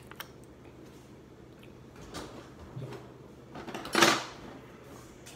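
Quiet kitchen handling sounds, then a kitchen drawer banging shut about four seconds in, as a spoon is fetched.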